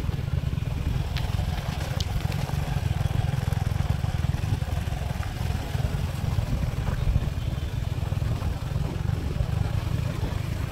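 Riding noise heard from a moving motorcycle: a steady low rumble of engine, tyres and wind on the microphone, with a couple of faint clicks about one and two seconds in.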